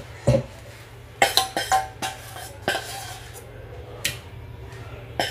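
Steel pan and utensil knocking and scraping against a steel mixer-grinder jar as thick cooked rice paste is scraped into it: a few separate knocks and scrapes, busiest a little over a second in, over a low steady hum.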